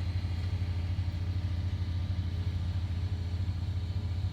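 Cement mixer truck's engine running steadily nearby, a low, even hum.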